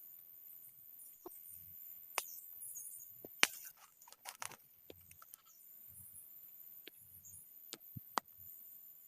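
Scattered sharp clicks and light knocks at an irregular pace, the loudest about three and a half seconds in, with soft low thuds between them and a faint steady high-pitched tone underneath.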